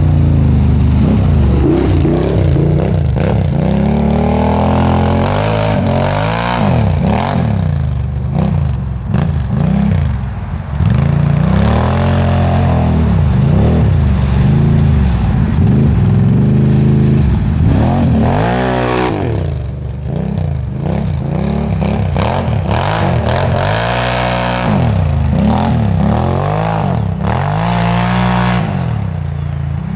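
2013 Can-Am XMR 1000's V-twin engine revving up and down over and over as the ATV is ridden, the pitch climbing and dropping every second or two.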